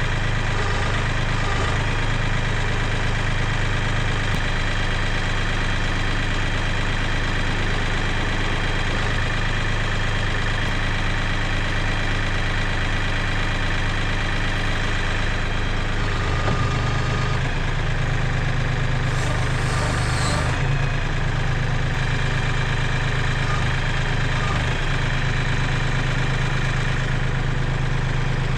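Compact tractor engine idling steadily while the backhoe is worked for removal, with a brief hiss about twenty seconds in.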